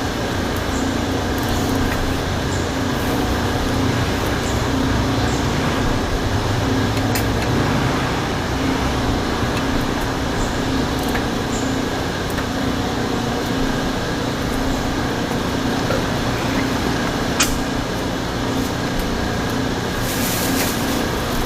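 Steady background hum, with a few faint clicks about seven and seventeen seconds in.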